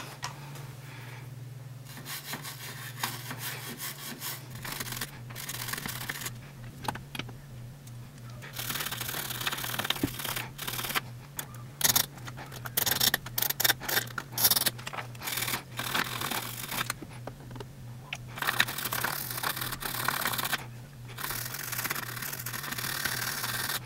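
Irregular scratchy scrubbing as a circuit-board chip's pins are cleaned of oxidation residue with a solvent, in clusters of quick strokes with short pauses. A steady low hum runs underneath.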